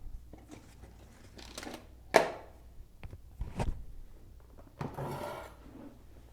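Handling noises from tools and pipe during a plumbing job: scattered clicks and knocks, with a sharp knock about two seconds in and a short scraping rattle about five seconds in.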